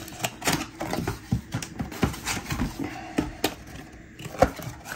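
Cardboard box being opened by hand: the flaps are lifted and a packing sheet pulled out, giving a run of scrapes, rustles and taps, with one sharp tap near the end.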